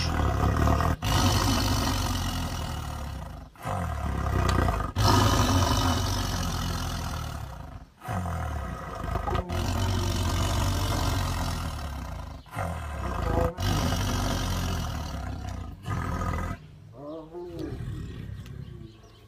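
Tiger roaring in four long, rough calls with short breaks between them, going quieter near the end.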